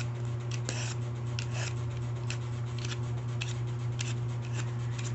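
Handheld vegetable peeler scraping skin off a bottle gourd (upo): a series of short rasping strokes at irregular intervals, roughly two a second. A steady low hum runs underneath.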